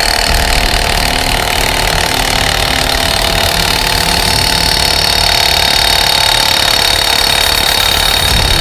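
Milwaukee M18 2767 cordless impact wrench hammering steadily without a break, driving an exhaust pipe stretcher to expand 16 gauge stainless steel pipe.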